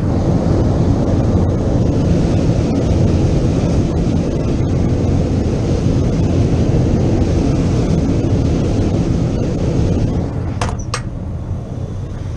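Old gas-fired warehouse heating unit running: a loud, steady low rumble of the burner and blower, easing off slightly after about ten seconds, with two sharp clicks near the end. It is running normally again after being reset from a lockout.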